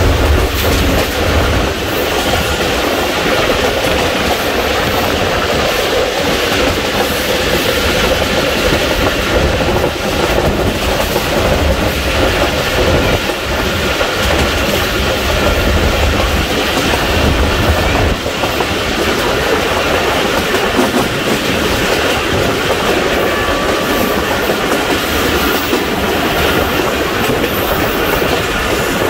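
Passenger train running along the line, heard from aboard: a steady rumble with wheels clacking over the rail joints.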